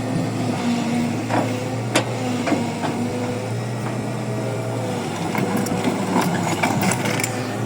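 Diesel engine of heavy construction machinery running steadily at a worksite, with several sharp metal knocks and clanks, a few early on and a quick cluster near the end.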